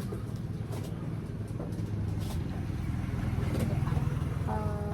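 A motor vehicle's engine running with a steady low hum that grows a little louder about four seconds in.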